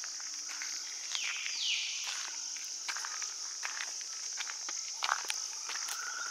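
Steady high-pitched drone of forest insects, with footsteps crunching on a dirt path. About a second and a half in, a call slides down in pitch.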